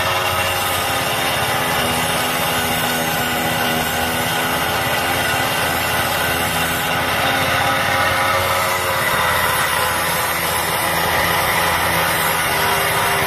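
Small motorcycle engine running steadily, driving a belt-powered grinding wheel mounted on the fuel tank, with a steel knife blade rasping against the spinning wheel as it is sharpened from partway through.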